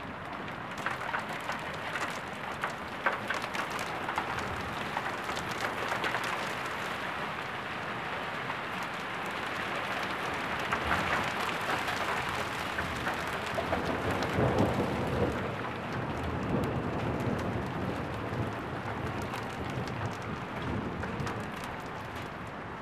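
Thunderstorm rain pattering steadily, with many sharp ticks of single drops striking. A low rumble swells about halfway through.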